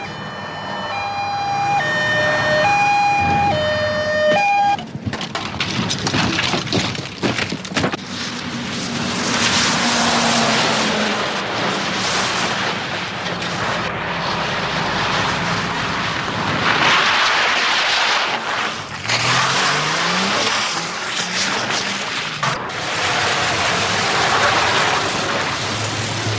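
A two-tone siren alternates between a higher and a lower note for the first five seconds. Then a heavy truck with a loaded flatbed trailer drives hard through puddles, with loud water spray and tyre noise, and its diesel engine revs up about twenty seconds in.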